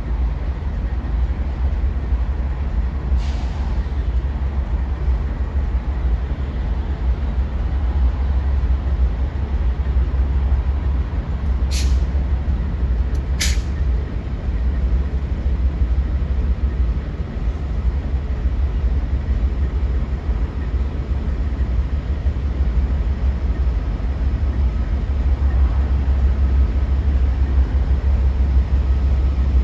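Amtrak Downeaster's GE P42 diesel locomotive pulling slowly into the station, a steady low rumble throughout. A few sharp clicks, one a few seconds in and two close together about halfway through.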